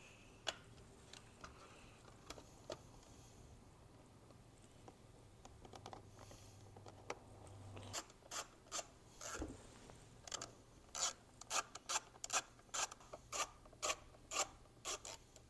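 Faint clicks and ticks of a quarter-inch ball Torx socket tool and hard plastic trim as screws are driven back into a steering wheel's trim. The first half holds only a few faint clicks; from about halfway comes a run of sharp, uneven clicks, roughly one or two a second.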